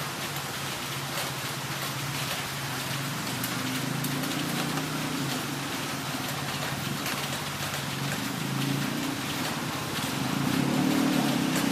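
Heavy rain falling steadily, with scattered sharp drop impacts, over a low, wavering hum that grows louder in the second half.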